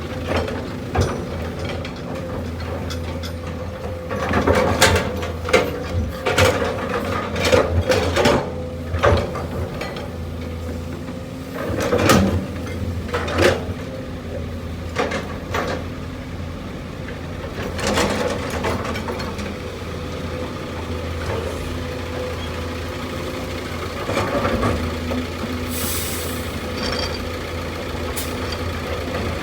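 Heavy diesel machinery running steadily, with repeated sharp metal clanks and knocks and a short hiss near the end.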